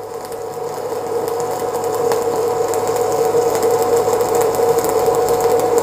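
Shielded metal arc (stick) welding with a 3/32-inch E7018 low-hydrogen electrode at 90 amps. The arc crackles and sizzles steadily over a steady hum, growing a little louder over the first couple of seconds and then holding.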